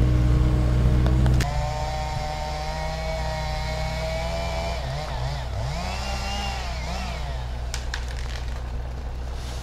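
Mini excavator's diesel engine running close by. About a second and a half in, the sound cuts to a quieter engine farther off, its pitch rising and falling a few times in the middle.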